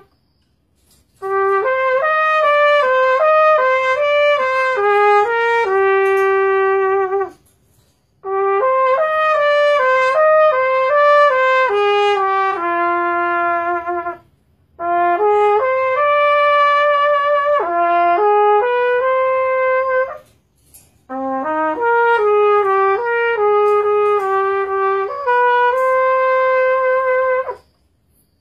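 Unaccompanied solo trumpet playing a melody in four phrases of about six seconds each, with a short breath pause between phrases.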